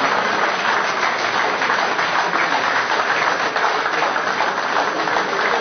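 A crowd applauding: a dense, steady clatter of many hands clapping, with voices mixed in.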